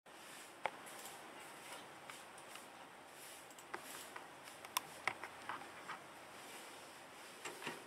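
Faint steady hiss with scattered small sharp clicks and ticks, irregularly spaced, a few of them louder, like light handling noises.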